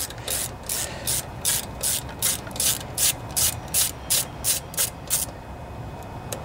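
Ratchet wrench clicking in a steady rhythm, about three clicks a second, as the mounting bolts of the old ignition coils are backed out; the clicking stops about five seconds in.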